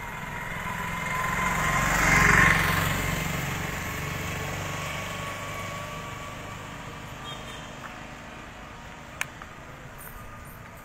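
An auto-rickshaw's small engine approaching and passing close by, loudest about two seconds in and then fading away. A single sharp click near the end.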